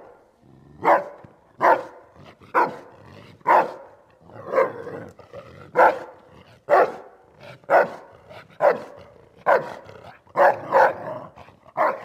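Doberman Pinscher barking repeatedly: a dozen or so short, loud, deep barks about one a second, with two barks in quick succession near the end.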